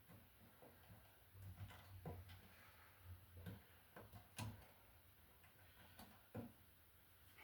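Faint, scattered clicks and light taps of electrical ground wires being gathered together by hand in a junction box, about seven or eight of them, the sharpest about four and a half and six and a half seconds in.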